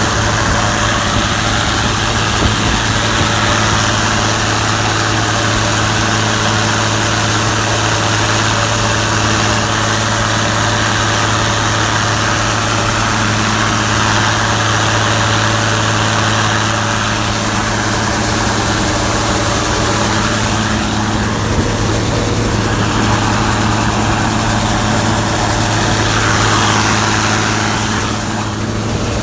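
Gleaner combine's engine running steadily: a loud, even drone with a strong low hum, unchanged until a slight dip near the end.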